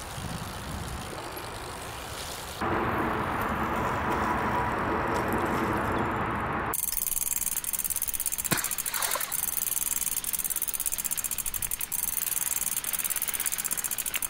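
Brompton folding bicycle rolling over wet tarmac: tyre hiss on the wet road, with a fast even ticking from the rolling bike in the later part. About eight seconds in there is a short splash as a wheel runs through a puddle.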